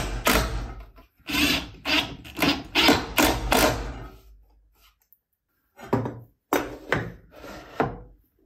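Cordless Makita drill-driver running in short bursts, about two a second, driving screws through a wooden strip into a board, then dying away. Near the end come a few knocks and clicks as a metal combination square and steel rule are set down on the board.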